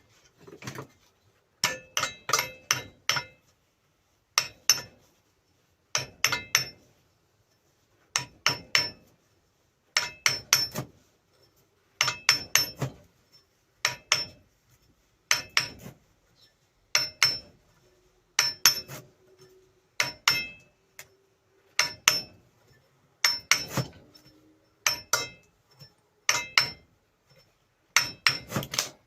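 Hammer tapping on the grinder's stuck metal plate to work it loose: quick bursts of two to four ringing metal strikes, repeated every second or two.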